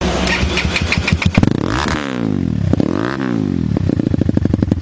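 Crossfire RM 250 dirt bike engine revved through its aftermarket exhaust. It opens with a quick run of sharp pops, blips up and drops back twice, then settles to an even, pulsing idle.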